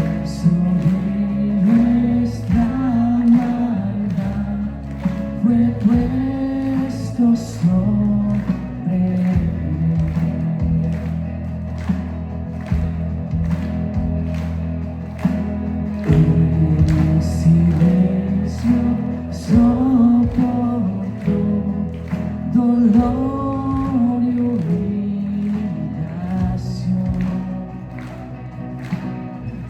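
Live worship band playing a song with voices singing over it: drums keep a steady beat under bass, guitars and piano.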